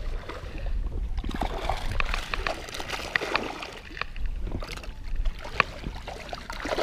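Mesh keepnet being hauled up out of the water alongside an inflatable boat: water splashing and sloshing off the net, with scattered short clicks and rustles as it is handled.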